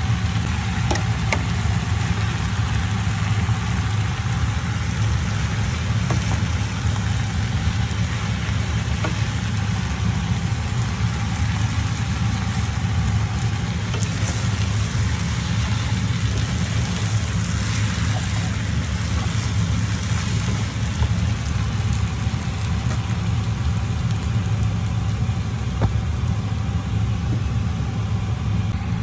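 Stir-fried noodles sizzling in a frying pan over a steady low hum, with a few light clicks of a wooden spatula against the pan.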